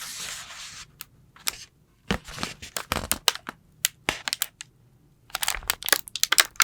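Slime being squeezed and played with by hand: a short hiss at the start, then an irregular run of crisp clicks and crackles.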